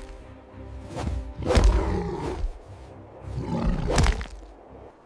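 Dramatic background music with animal roars and snarls over it, the loudest about one and a half and four seconds in, dying away near the end.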